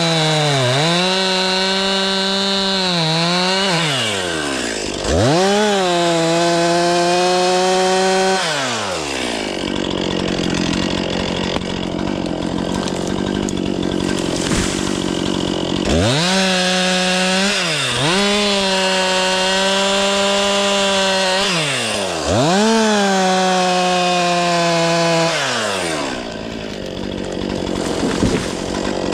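Stihl 500i fuel-injected two-stroke chainsaw running at high revs and cutting wood, its pitch dipping sharply and recovering several times as the chain bites under load. The high engine note falls away for several seconds in the middle and again near the end.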